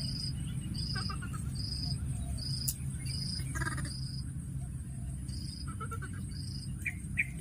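An insect chirping steadily, a short high note roughly every half second, over a low steady rumble. A few faint short calls from the baby monkey come through now and then.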